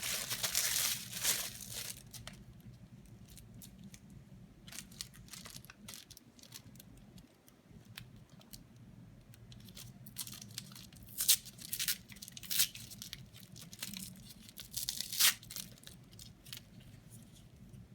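Crinkling and tearing of sterile medical packaging as a luer lock cap package is peeled open by hand, with scattered crackles and a few louder rustles along the way.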